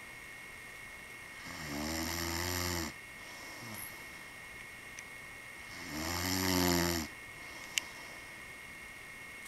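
A man snoring in his sleep: two snores about four and a half seconds apart, each lasting a little over a second, the second one louder. There is one short sharp click near the end.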